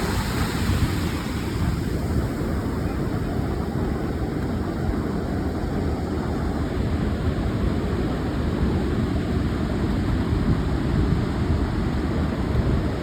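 Wind rumbling and buffeting on the microphone over the steady wash of ocean surf, with a sharp click right at the start.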